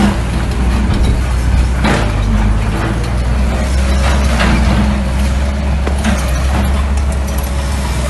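Mini bulldozer's diesel engine running steadily, with a few sharp clanks about two, four and a half, and six seconds in.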